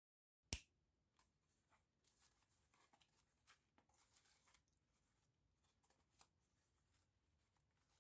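Near silence, with a single sharp click about half a second in, then faint crinkling of scrunched newspaper and masking tape as the stuffed carton form is handled.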